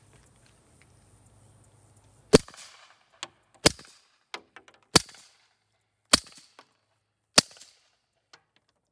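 Five shots from a 9mm pistol with a GSL Stealth suppressor firing subsonic rounds, about one and a quarter seconds apart: each a short, sharp crack, about as quiet as a .22, and each followed by a much fainter click.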